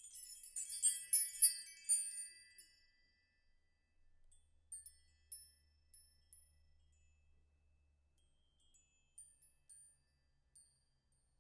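Tinkling chime-like outro music: a dense flurry of high bell notes for about the first two and a half seconds, then sparse single pings.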